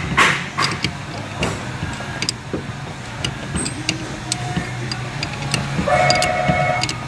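Ratchet wrench working the upper strut mount nut on the rear strut, metal tools clinking. Sharp clicks come in the first second and a half, scattered ticks follow, and then about a second of fast, buzzing clicks near the end.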